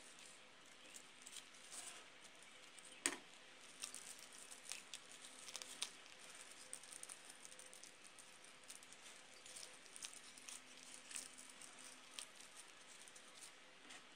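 Tissue paper crinkling and rustling faintly as hands press and glue petals around a paper rose, in scattered soft crackles, with one sharper click about three seconds in.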